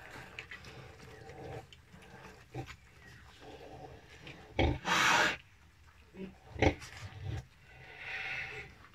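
A sow nursing her newborn piglets: scattered low pig grunts and scuffling, with one loud, harsh burst about five seconds in.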